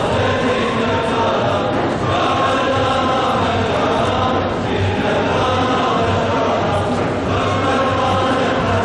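Group of men's voices chanting together in a steady, continuous Sufi devotional chant of the Mevlevi ceremony.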